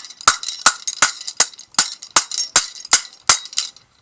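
A smashed smartphone being knocked or tapped: a steady run of sharp clicks, about three a second, each with a brief high ring.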